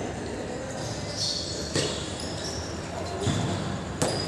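Football being kicked during a match: two sharp ball impacts, about two seconds apart.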